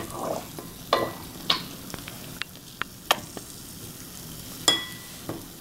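Faint crackling fizz of baking powder bubbling as it reacts with a liquid, broken by a handful of light, sharp clicks and taps.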